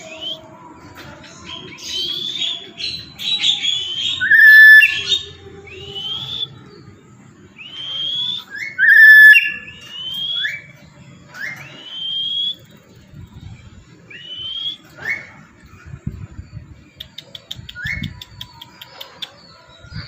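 Black-capped lory giving a series of loud, shrill, rising whistled calls, with the two loudest bursts about five and nine seconds in.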